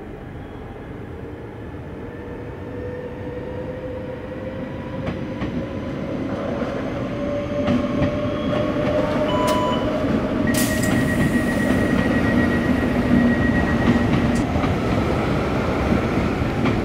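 Electric passenger train running through a station, its rumble growing steadily louder with a slowly rising whine. A high steady squeal joins about ten seconds in and lasts about four seconds.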